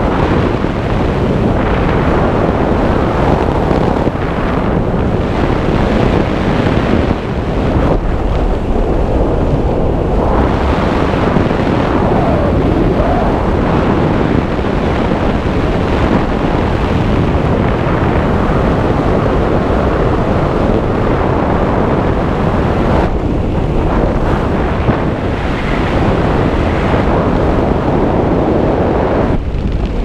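Steady wind rushing over a helmet camera's microphone as a skydiver descends under an open parachute.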